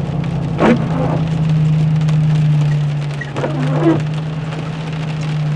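Rain pouring down on a moving vehicle, heard from inside, over the steady hum of its engine. Two short, sharper sounds stand out, about a second in and again near four seconds.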